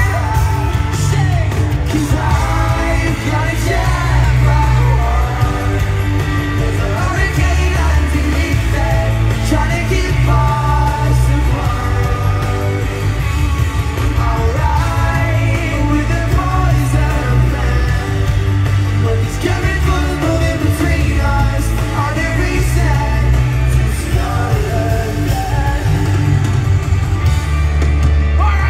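Pop-rock band playing live in an arena, heard loud from the crowd, with a heavy pulsing bass under the singing and audience screaming.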